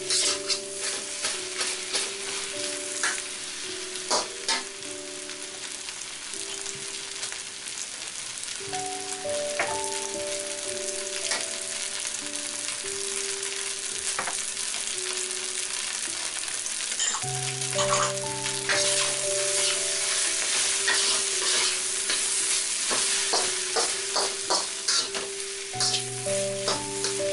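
Nasi goreng sizzling in a hot wok while a metal spatula stirs and scrapes it, with frequent clacks of the spatula against the wok. Soft background music plays underneath.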